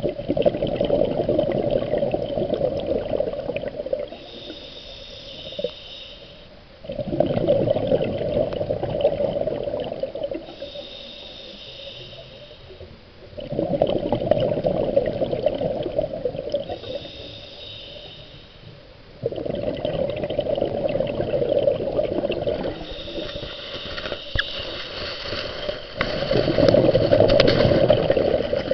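Scuba diver breathing underwater through a regulator, about once every six to seven seconds: each long exhale comes out as a rumbling rush of bubbles, followed by a shorter, higher hiss of the regulator on the inhale.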